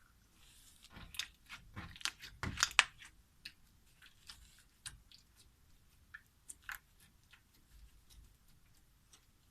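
Clear slime being squeezed and kneaded by hand, giving sticky popping and clicking sounds as air pockets burst. The pops come thick and fast about a second in, loudest near three seconds, then thin out to scattered single clicks.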